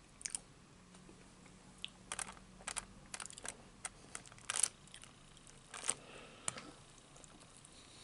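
Irregular sharp clicks and taps, about a dozen, the loudest about halfway through, from a plastic fork and a takeout food container being handled during eating.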